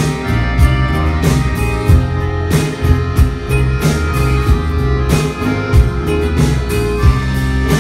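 Live rock band playing: strummed acoustic and electric guitars with a drum kit, and an accordion in the mix, the drum hits standing out sharply over sustained chords.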